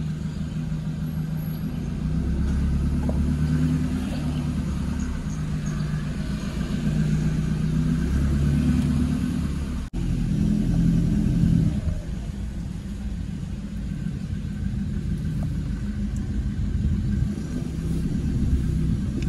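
Car engine and road rumble while driving slowly, the engine note rising and easing a few times, with a brief dropout about halfway through.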